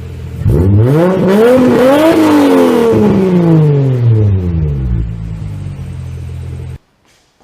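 Toyota Supra MkIV's straight-six engine idling, then revved once: the pitch rises for about a second and a half and falls slowly back to idle. The sound cuts off abruptly near the end.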